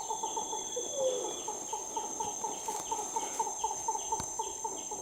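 Great blue turaco calling: a long, rapid series of short throaty notes, about five a second, over a steady high-pitched whine.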